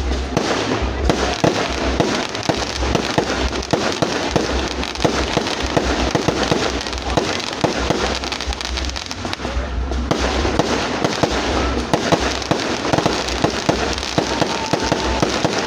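Fireworks going off without a break: a dense, continuous stream of overlapping bangs and crackles, with deep thuds underneath.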